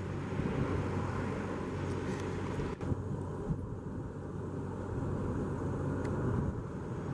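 Boeing 737-800 jet airliner on landing approach with gear down, its engine noise a steady low rumble as it passes close overhead.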